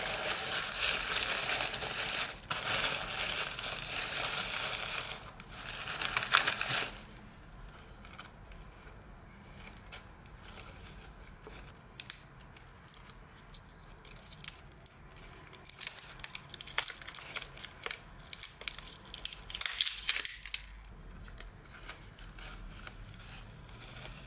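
Tissue paper crinkling and rustling as it is folded back, loud and dense for about the first seven seconds. Then quieter scattered light clicks and taps of washi tape rolls being handled, with a brief louder rustle about twenty seconds in.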